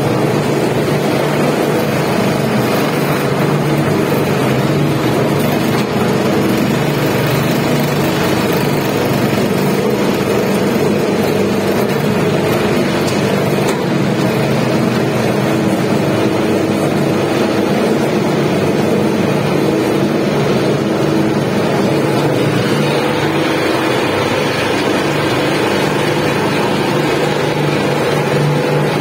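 Double-shaft shredder running steadily with a constant motor hum, its toothed blade shafts tearing through waste clothing and textiles.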